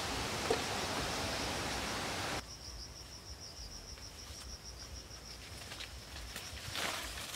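Insects chirping in a steady, pulsing high trill. For the first two and a half seconds a louder even hiss covers them, then cuts off abruptly. There is a soft scuff near the end.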